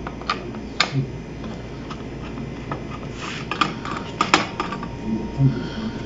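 Scattered light clicks and metallic taps of a screwdriver and screws working on the sheet-metal back chassis of an LCD TV, irregular, with a quicker cluster of clicks a little past halfway.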